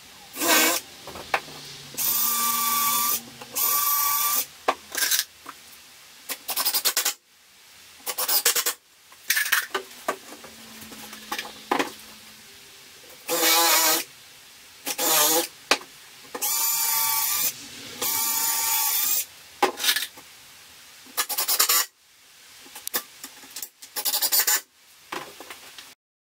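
Cordless drill-driver driving screws into pine bed-frame slats, in a dozen or so short runs of about a second each with pauses between.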